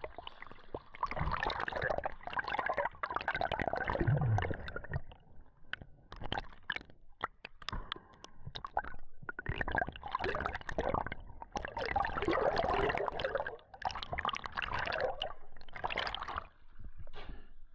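Water gurgling and sloshing at a spearfisher's camera in the sea, in bursts of one to two seconds with quieter gaps and small clicks between them.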